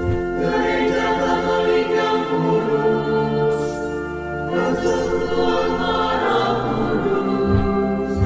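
Choir singing slow, long-held chords as background music.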